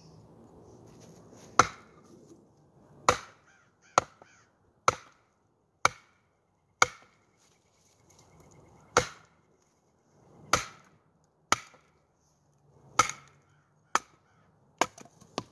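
Batoning: a wooden branch strikes the spine of a D2-steel Bobcat kukri-bowie knife, driving the blade down through a split of solid firewood. About a dozen sharp knocks come roughly one every second, with a longer pause midway.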